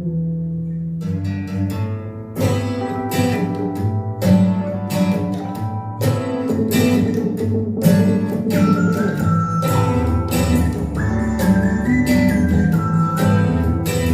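Pop music with guitar and a steady beat played through an IKEA Eneby stereo speaker pair; a high melody line comes in about halfway through.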